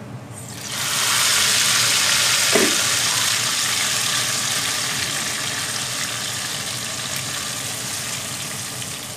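Hot oil tempering (baghar) of browned onions, curry leaves, whole red chillies and cumin poured onto simmering kadhi. It sizzles loudly about half a second in, then slowly dies down.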